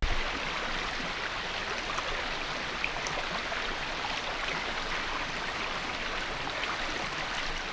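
Steady rushing of fast-flowing river water.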